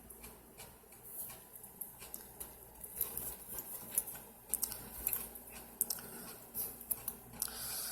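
Faint, irregular light clicks and rustles of small steel lock-pick tools and tension wrenches being handled.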